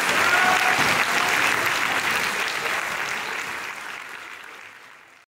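Audience applause, steady at first, then fading out over the last two seconds before cutting off.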